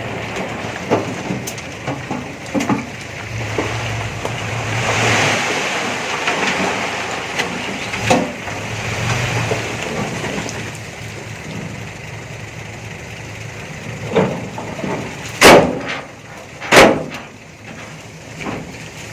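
Heavy earthmoving machine's diesel engine running, with scattered heavy bangs and thuds of rock and steel; the two loudest bangs come about a second apart near the end.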